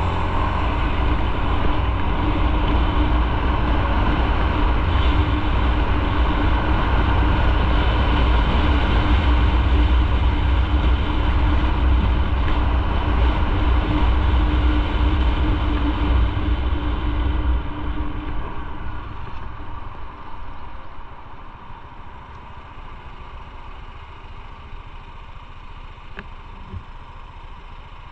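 Motorcycle riding along, engine and road noise loud with a heavy low rumble and a steady hum. About two-thirds of the way through it eases off and falls to a much quieter running level.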